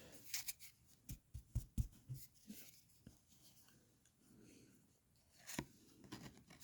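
Trading cards being handled and laid down one after another: soft taps and flicks, a quick run of them in the first three seconds, a pause, then a few more about five and a half seconds in.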